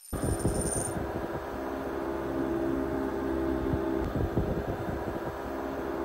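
Zero Breeze portable air conditioner running: a steady whirr of fan and compressor with a low hum. A faint high chime fades out in the first second.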